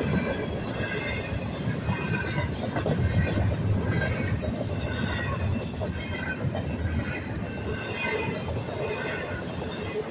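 Union Pacific double-stack intermodal train's cars rolling past at speed: a steady rumble of steel wheels on rail, with a higher ringing that pulses about once a second.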